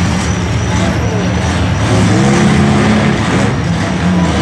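Several demolition derby cars' engines running loud together, revving up and down as the cars drive and push in the pit.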